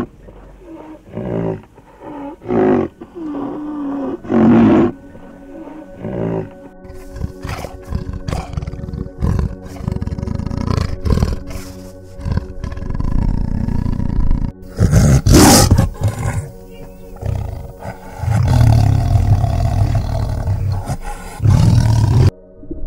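Big-cat roars and growls, repeated and loud through most of the stretch, after a run of short pitched animal calls at the start.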